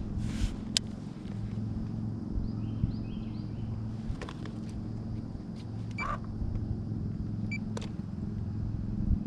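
A steady low motor hum over a low rumble, with a few light clicks and short high chirps scattered through.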